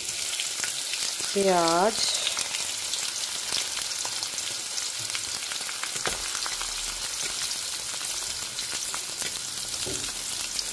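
Sliced onions frying in hot oil with cumin seeds in a deep pan: a steady sizzle with many small crackles and pops as the onion goes in.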